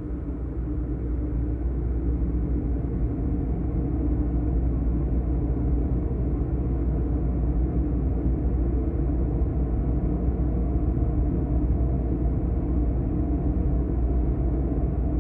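A deep, steady rumbling drone with a few held tones above it, swelling up over the first few seconds and then holding: a film soundtrack's dark atmospheric drone.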